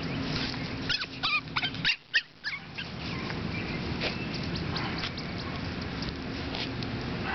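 Seven-week-old Boston Terrier puppies whimpering and yipping, a quick run of short high cries between about one and three seconds in.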